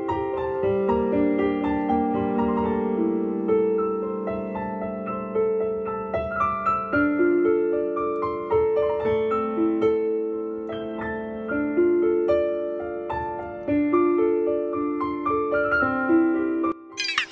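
Instrumental music: a piano-like melody of quick notes over a held low note and a steady beat. It stops just before the end.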